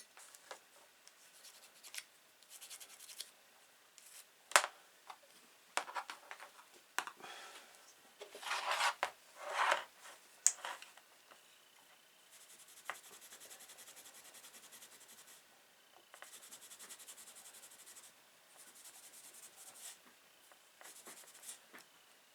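Steel wool scrubbing a pocket knife blade: scattered scratches and clicks, two louder rubbing passes about nine seconds in, then three spells of fast, even scrubbing in the second half.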